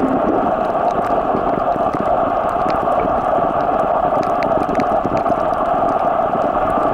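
Underwater ambience over a coral reef as picked up by a camera underwater: a steady, muffled rushing noise with scattered faint clicks.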